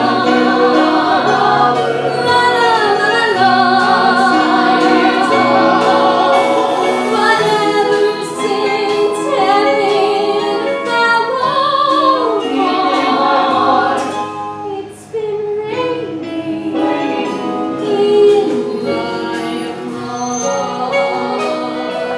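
Live stage band playing a show tune, with a vocal ensemble singing over it. The music drops briefly about two-thirds of the way through and then comes back in.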